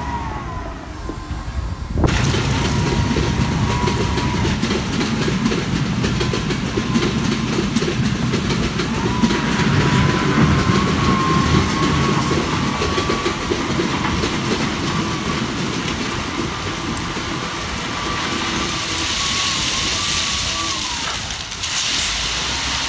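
A LiuGong wheel loader's diesel engine works under load while railway ballast stones crunch and rattle against its bucket. A wavering whine rises over the engine from about nine seconds in. Near the end, stones pour out of the raised bucket with a hissing clatter.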